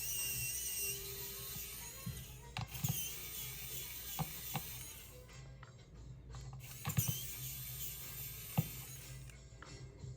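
Small precision screwdriver working the tiny screws out of a phone's inner frame: irregular light clicks and ticks, with a few sharper taps from the tool and the screws.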